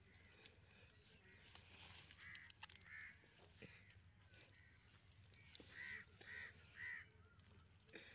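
Faint crow caws: two calls about two and a half seconds in, then three in quick succession around six to seven seconds. Under them are faint small clicks and rustles from hands digging carrots out of the soil.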